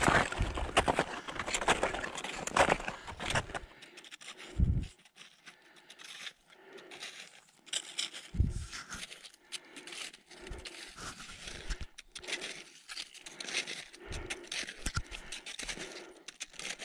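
Footsteps crunching and scraping on snow at a steady walking pace, the boots fitted with crampons.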